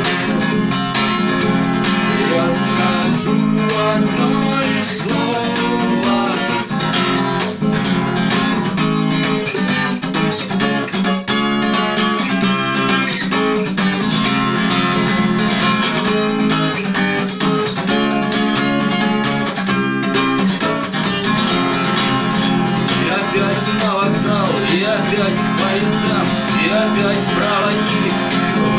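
Acoustic guitar strummed in a steady rhythm, playing a song's chords.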